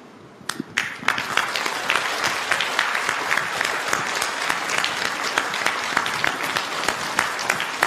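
Studio audience applauding: a few separate claps about half a second in, then dense, steady applause from about a second in.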